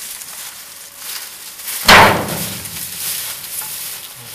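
An armload of cut sugarcane stalks thrown onto a flatbed truck: one loud thump about two seconds in, amid the crackle and rustle of dry cane.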